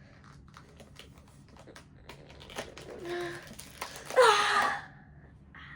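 Light, irregular plastic clicks and taps of small 2x2 Rubik's cube pieces being handled and fitted back together. A voice sings two short notes over it, the second, about four seconds in, louder.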